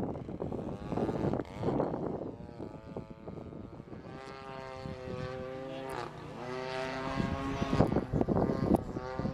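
Propeller-driven model airplane engine flying past, its pitch dropping as it goes by about halfway through. Wind gusts buffet the microphone at the start and again near the end, louder than the engine.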